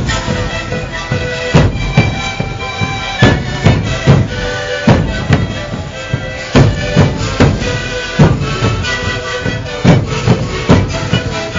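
Sikuri band of many siku panpipes playing a held, droning melody in unison, over bombo bass drums beating a steady rhythm about twice a second.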